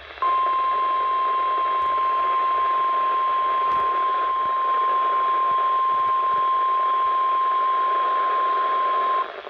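NOAA Weather Radio 1050 Hz warning alarm tone: one steady high tone over radio hiss, starting abruptly and cutting off about nine seconds later. It is the signal that a warning message follows, here a severe thunderstorm warning.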